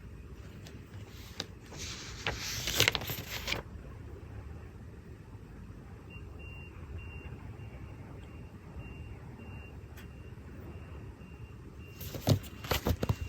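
Desk sounds while studying, over a steady low background hum: a rustle of paper about two seconds in, lasting over a second, then a few sharp taps near the end.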